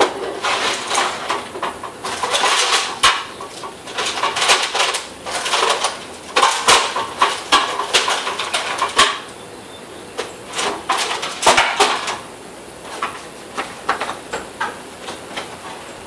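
Rummaging through tools: irregular clattering and rattling of small hard objects, dense for about twelve seconds, then only scattered clicks.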